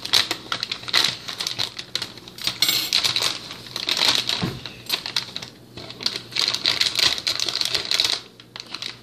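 Thin plastic bag crinkling and rustling close to the microphone as a hand grips it and reaches inside, a dense run of crackles with short pauses.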